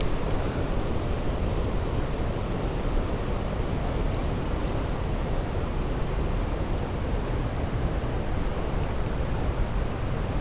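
Steady rush of fast-flowing river current, an even unbroken noise.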